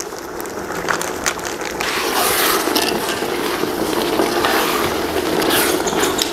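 A metal ladle stirring thick, steaming tomato-pineapple jam in a large aluminium pot over a burner: the ladle scrapes and clicks against the pot over a steady hiss from the hot pot. The stirring starts a second or two in.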